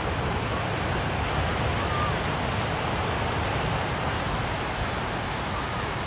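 Ocean surf: small waves breaking and washing up a sandy beach, heard as a steady wash of noise.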